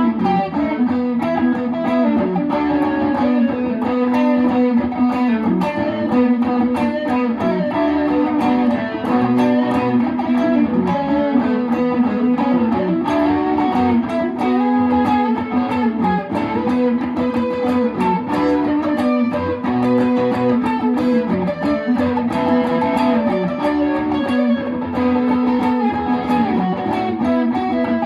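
Electric guitar playing a melodic line with held notes, its phrases recurring.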